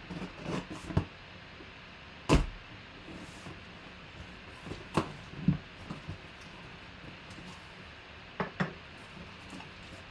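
Cardboard box being opened by hand: a knife slitting the packing tape, then the box handled and its flaps folded open, with a series of short knocks and taps on the table, the loudest about two seconds in.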